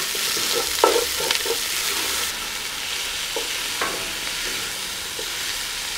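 Diced onions and bell peppers sizzling in hot oil in a cast-iron Dutch oven, with a wooden spatula scraping and knocking against the pot a few times as they are stirred.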